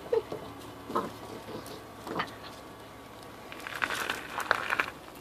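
Puppies scrambling on a wooden porch deck: a few short isolated sounds, then a run of quick scratchy clicks near the end from paws and claws on the boards and rubber mat.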